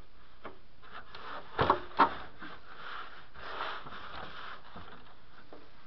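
Handling noise from the parts of a television being taken apart: a few sharp knocks about one and a half to two seconds in, then rubbing and scraping for a second or so.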